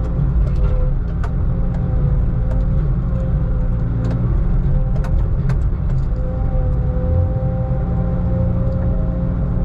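Heavy diesel logging machine running under steady load: a deep rumble with a constant whining tone over it, and scattered sharp knocks and clicks.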